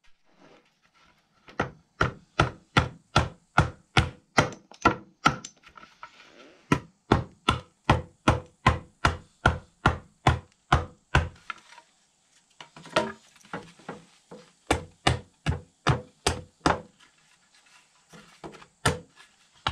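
Repeated sharp chopping blows of a hatchet and hammer into a small wooden tobacco stick, cutting and notching it: a long steady run of about two and a half strikes a second, then a pause and a few shorter bursts of blows, with a last single strike near the end.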